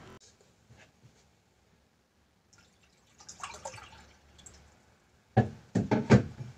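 Water poured briefly into a cup, followed near the end by several loud knocks and clunks as things are handled and set down on a desk.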